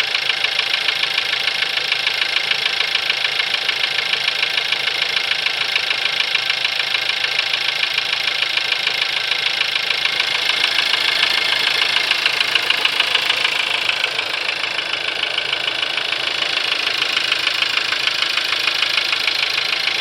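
1.4 CZDA turbocharged petrol four-cylinder idling with a fast, regular knock in time with the engine, a knock that appeared after the oil was changed to 5W-40 at about 6,000 km. It runs a little louder for a few seconds around the middle, then settles back.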